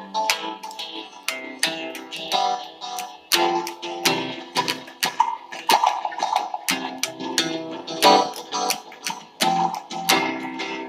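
Guitar strummed in chords without singing, its strokes coming every half second or so with the chord tones ringing between them.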